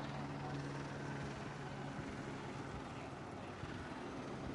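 A steady low engine drone, fading slightly after about two seconds, over the general noise of a street crowd.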